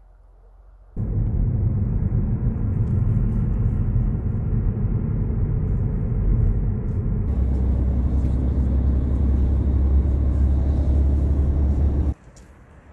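Loud, steady low rumble of a moving road vehicle's engine and running noise, as heard while riding inside it. It cuts in about a second in, changes slightly partway through, and stops abruptly near the end.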